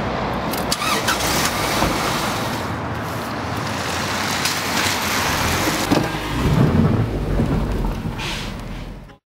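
A car on the move, heard as a steady rush of road and wind noise with some engine underneath. The sound cuts off abruptly just before the end.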